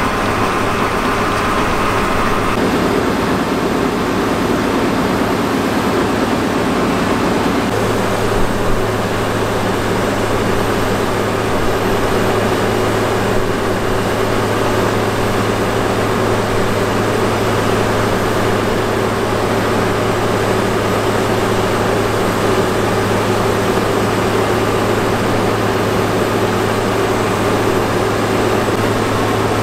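A steady mechanical drone, like a running engine or machine. About eight seconds in it settles into a constant low hum.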